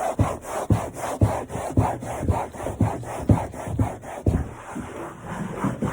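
Norwex Enviro microfiber cloth rubbed briskly back and forth over a stain, a steady rhythm of about four strokes a second.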